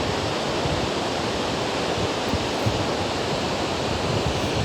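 Steady rushing noise of falling rain, with wind buffeting the microphone in irregular low thumps.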